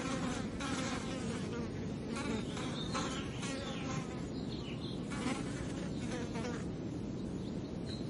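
Flies buzzing on and off, in repeated short passes over a steady low drone.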